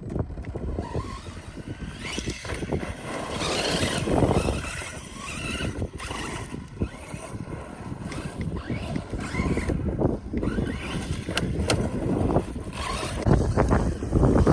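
Brushless electric motor of a 1/8-scale DHK Maximus RC truck whining up and down as it is driven in bursts, with heavy wind buffeting the microphone.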